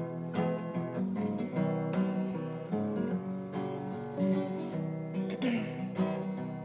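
Acoustic guitar playing an instrumental break, with notes and chords struck every half-second or so.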